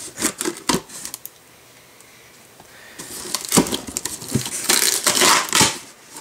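Scissors snipping along the packing tape on a cardboard box, then, after a short pause, louder rasping and crackling for a few seconds as the taped flaps are pulled apart and the noisy tape tears away from the cardboard.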